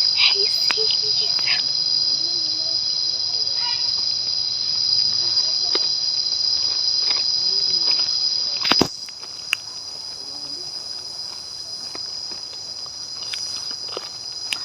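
Steady, high-pitched insect chorus. Near the middle there is a sharp click, and after it the chorus carries on more quietly.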